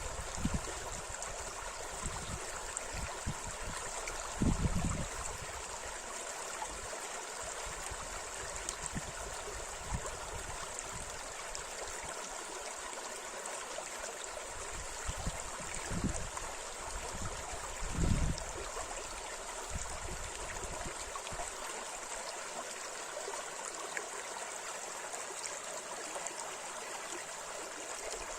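River water rushing steadily over shallow riffles, a continuous even hiss of flowing water. A few short low bumps break through: one about four seconds in, and two more past the middle.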